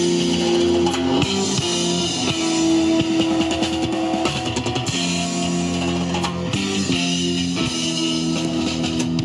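Live rock band playing the instrumental opening of a song: electric guitars hold chords that change every second or two, over bass guitar and drum kit with cymbals.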